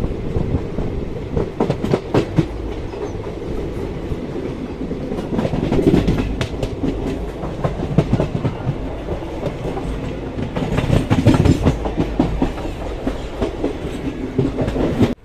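Indian Railways passenger train running at speed, its wheels clattering over rail joints in an irregular stream of sharp clicks over a steady rumble. The sound cuts off suddenly near the end.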